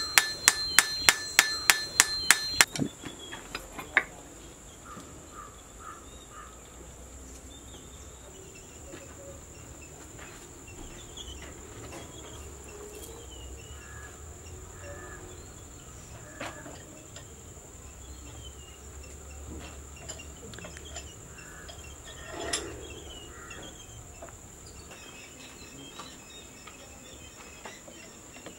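Hammer strikes peening the metal pins of a wooden knife handle on an anvil, about three a second with a metallic ring, ending with a few lighter taps about three seconds in. Then a steady high insect drone, with scattered faint chirps and a single knock.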